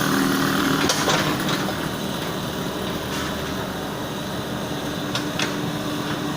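Cobelco mini excavator's diesel engine running steadily, a little louder in the first second, with several short sharp knocks over it.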